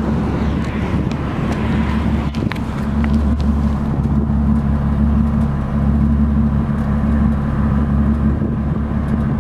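A chip-tuned Seat Leon Cupra's VR6 engine running at a steady, unchanging speed, heard at its twin exhaust tips as a low, even note.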